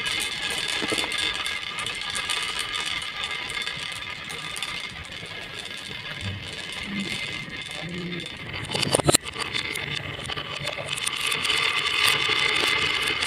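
Marbles rolling and clattering along a marble run track, a steady dense rattle with a sharper clack about nine seconds in.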